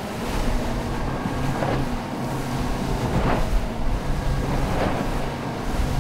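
Outboard-powered boat running at speed over chop: steady engine drone under wind and rushing water, with a splash from the hull about every second and a half as it meets the waves.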